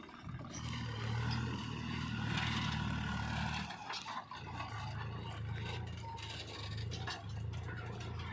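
Heavy diesel engine running steadily, with scraping and rattling over it as mud is worked. The engine drops out for under a second a little before halfway, then carries on.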